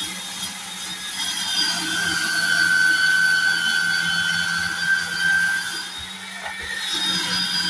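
Electric drum grater running and grating peeled raw potatoes: a steady motor hum with a whining, rasping grate on top that gets louder through the middle as the potatoes are pushed against the drum.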